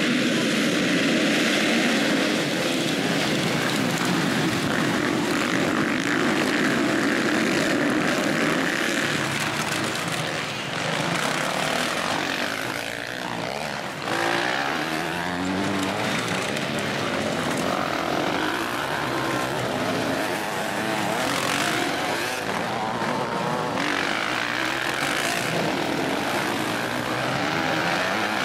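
A field of motocross bikes running together at full throttle, a loud dense engine drone. About halfway through it dips and cuts abruptly to bikes accelerating out of a dirt corner.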